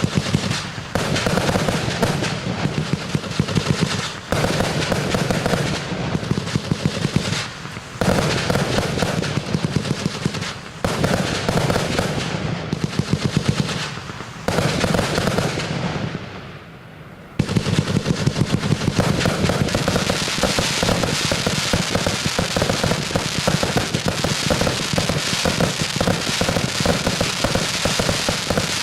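Voltbrothers consumer firework firing rapid volleys of shots and crackle in several runs separated by brief pauses. After a short lull just past the middle, it fires one long, unbroken rapid barrage.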